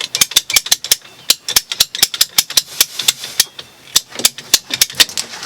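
Rapid, sharp clicks of a hand tool worked on the PEX water line to the sink, about six a second, pausing briefly after about one second and again after about three and a half.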